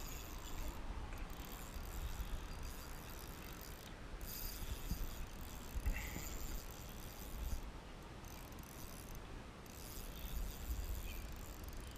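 Fishing reel being cranked, a soft mechanical whirring, over a low rumble.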